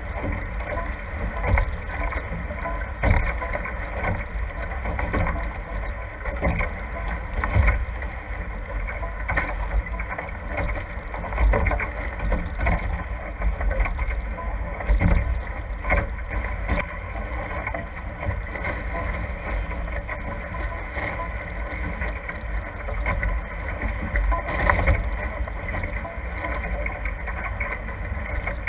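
Water rushing and splashing past the hulls of a NACRA F18 catamaran sailing fast, rising and falling in uneven surges, with wind rumbling on the microphone.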